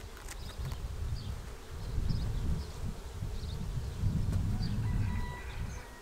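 Honey bees buzzing around an open hive frame, a steady hum, under a louder low rumble that swells about two and again about four seconds in. Faint high chirps sound now and then.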